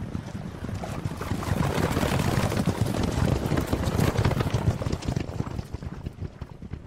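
Herd of white Camargue horses running past on dry, dusty ground: a dense clatter of many hoofbeats that grows to its loudest about two to four seconds in, then fades.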